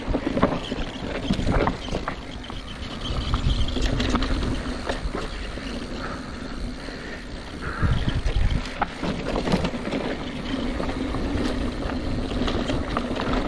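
Mountain bike descending a rocky dirt trail: tyres rolling and crunching over dirt and stones, with frequent sharp knocks and rattles from the bike over bumps.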